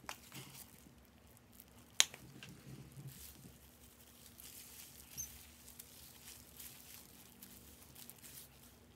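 Black disposable gloves rustling as they are pulled on, then soft rustling of gloved hands working through hair. One sharp snap about two seconds in is the loudest sound.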